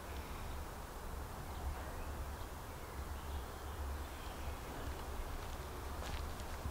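Quiet outdoor background: a steady low rumble with faint bird chirps a couple of seconds in.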